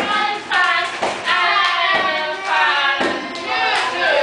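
Group of children singing a song together, with a few hand claps.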